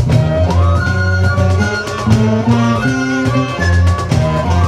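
A live folk band playing an upbeat tune: several fiddles and saxophones carry the melody over strummed guitars, with a cajón slapped in a steady beat.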